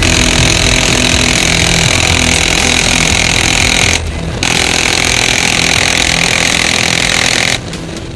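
Griffon helicopter in flight heard from the open door-gun position: a loud, steady mechanical roar with a hard hiss over it. It breaks off briefly about four seconds in, and near the end the level drops sharply.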